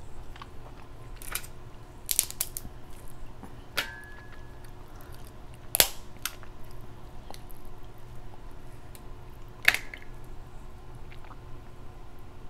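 Eating crab legs up close: a string of sharp cracks, snaps and mouth clicks, the loudest about six and ten seconds in.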